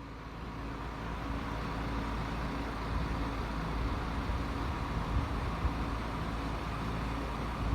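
City street ambience: steady road-traffic noise with a low rumble, fading in over the first couple of seconds.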